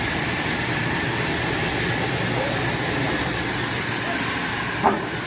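Sawmill machinery running with a steady, even whir, and a single short knock near the end.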